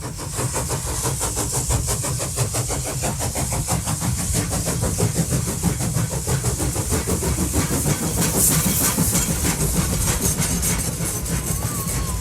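A train running with a rapid, even rhythmic beat and a low rumble.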